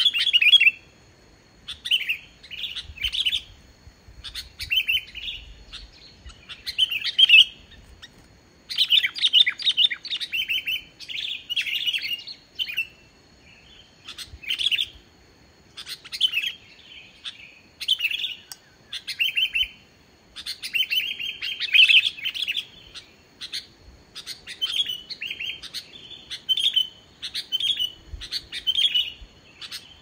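Sooty-headed bulbul singing energetically, short song phrases one after another every second or two with brief pauses. It is a plain bulbul song, without mimicked fills.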